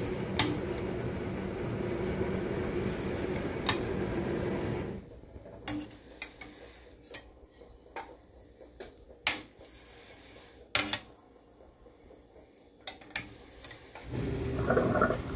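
A metal ladle clinking against the stoneware crock of a Crock-Pot slow cooker full of stew, about ten sharp separate clinks. A steady low rushing noise runs for the first five seconds and comes back near the end.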